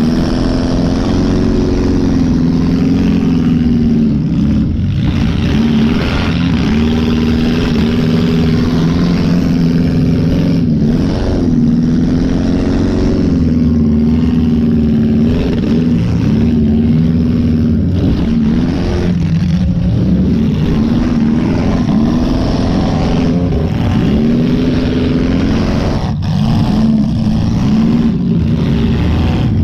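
A demolition-derby Chevy Lumina's 2.5 L Iron Duke four-cylinder engine, heard from inside the car, revving up and dropping back again and again as the car is driven.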